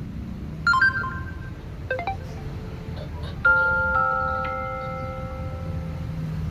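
Samsung Galaxy A55 notification tones playing one after another: a short chime of a couple of notes about a second in, a brief blip near two seconds, then a longer chime about halfway through that gains a higher note a second later and rings out.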